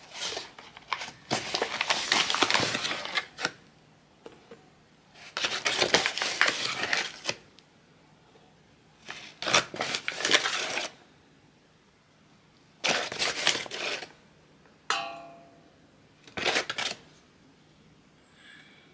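Flour being tipped out of its bag onto a kitchen scale: five separate bursts of rustling and pouring. A short ringing clink about fifteen seconds in.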